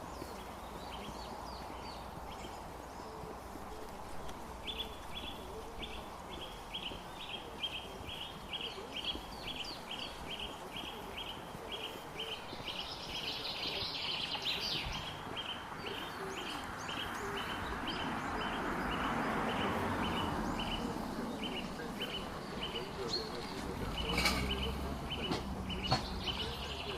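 Wind in the trees swelling and easing off, with a bird repeating a short, high chirp about twice a second.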